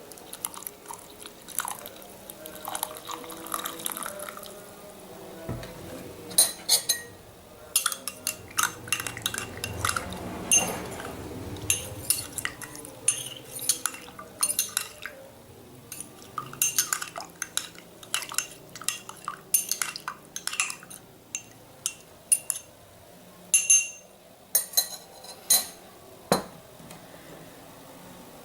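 A metal spoon clinking against a glass, with liquid splashing as a drink is mixed. Many sharp, irregular clinks, each with a short ring, and a denser stretch of liquid sound about ten seconds in.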